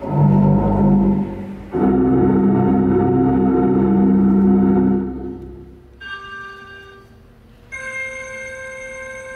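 Electronic score of a dance performance: two loud, low, sustained organ-like chords, then high, bright electronic tones, a short one about six seconds in and one held steadily from near the end.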